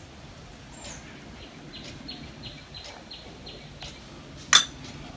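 Faint bird chirping, short repeated chirps about four a second, then a single sharp clink of a steel spoon set against a glass bowl near the end, the loudest sound here.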